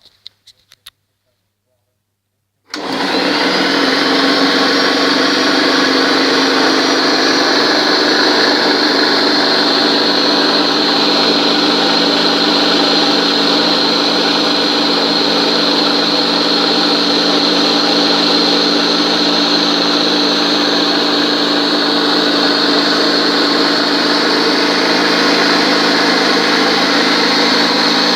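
Electric jigsaw mounted in a homemade scroll-saw bench, switched on about three seconds in and running steadily with a high whine. A few light clicks come before it starts.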